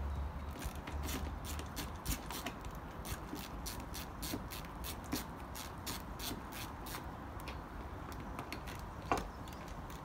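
Rapid light clicking, a few clicks a second, as a small hand tool is turned at a UPVC door hinge to loosen its pins. The clicks thin out near the end, with one sharper click, over a faint low rumble.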